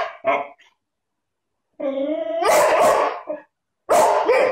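Boxer dog barking: two short barks at the start, a longer drawn-out bark about two seconds in, and another loud bark near the end.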